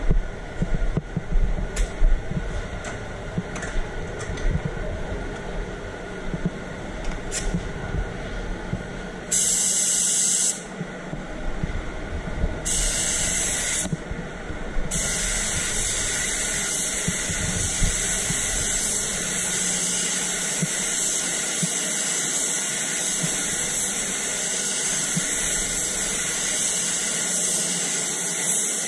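Air spray gun hissing as it sprays white direct-gloss paint onto a car bumper. It gives two short bursts about ten and thirteen seconds in, then runs as a steady spray from about fifteen seconds on, after several seconds of low rumble and handling knocks.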